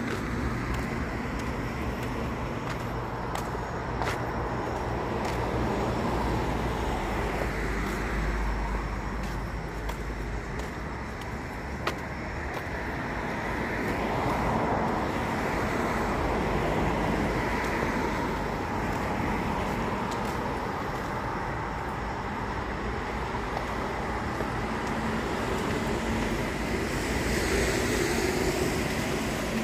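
Road traffic: a steady rush of tyres and engines from passing cars, swelling several times as vehicles go by.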